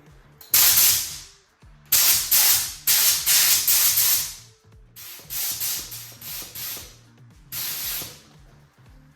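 Compressed-air spray gun spraying 2K primer, hissing in a series of bursts with short breaks between them as the trigger is pulled for each pass.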